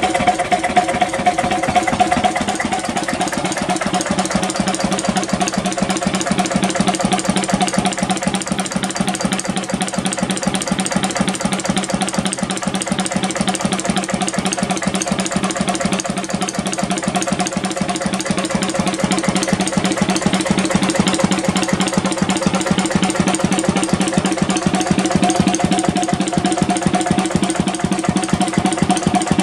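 1937 Lister CS 3.5 hp single-cylinder 'Cold Start' diesel stationary engine running steadily at its set speed of about 650 rpm, with a fast, even beat.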